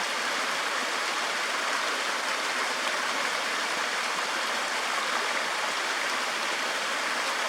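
Small creek waterfalls splashing and rushing, a steady, even sound of running water.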